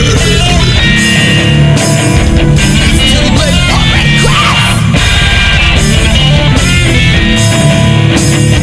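Loud heavy rock music with guitar and a steady beat, playing without a break.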